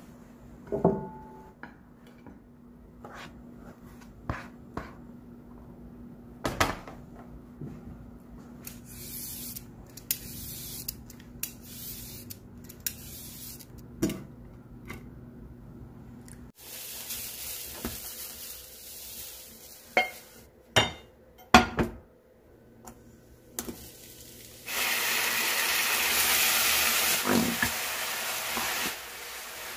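Kitchen prep sounds: dishes and utensils clinking and knocking now and then, with a louder cluster of knocks around two-thirds of the way through. Near the end comes a loud hiss lasting about four seconds.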